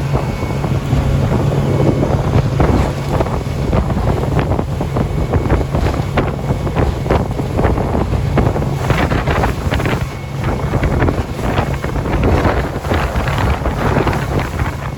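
Boat motor running steadily under way, with heavy wind buffeting the microphone and water rushing past.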